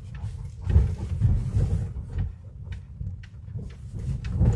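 Mercedes-Benz S400L (W222) on the move, heard from inside the cabin. Low rumbling with irregular clunks about a second in and again near the end comes from the left and right front suspension: the chassis noise, worn front-end parts, that the car is in for.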